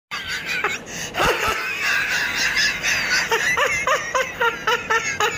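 A person laughing in a run of short, high-pitched, evenly spaced bursts, about three a second, over the second half.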